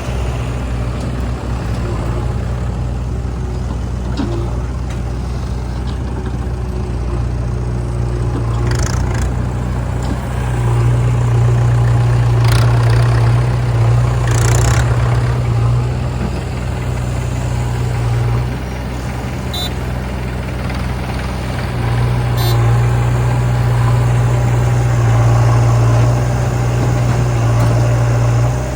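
Diesel engines of a JCB 3DX backhoe loader and a Mahindra 475 DI tractor running steadily. The engine note grows louder for several seconds twice, as when the loader works under load.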